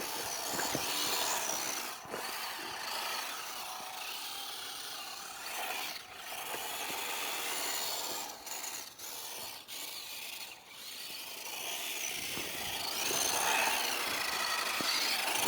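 WPL D12 RC drift truck's small electric motor whining as it is driven, the pitch rising and falling with the throttle over a steady hiss, dropping out briefly several times.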